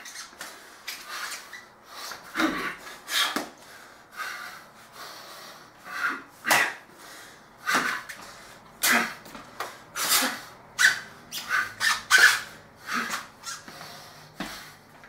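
Irregular short hissing and squeaking noises, one or two a second, from a man's vigorous martial-arts movement: sharp breaths, and sneaker soles scuffing and squeaking on a vinyl floor.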